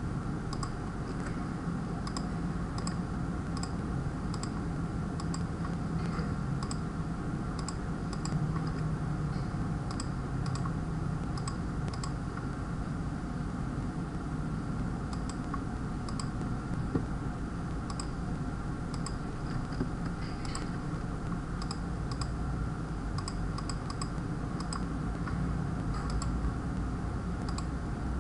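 Scattered clicks of a computer mouse and keyboard, one or two a second with a few quick runs, over a steady low hum.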